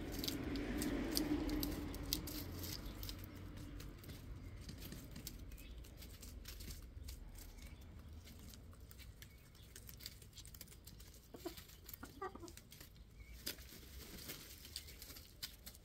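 Chickens settling in their coop: faint scattered rustles and ticks, with a few soft clucks after about eleven seconds.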